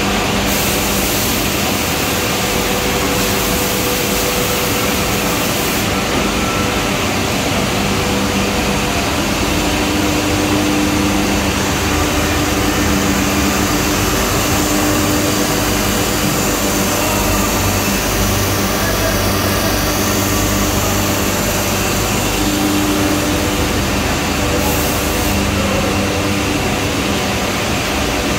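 Morbidelli 330 woodworking CNC machining centre running: a steady, loud mechanical noise with a low hum and a few held tones. The upper hiss shifts about a second in, around six seconds in, and again near the end.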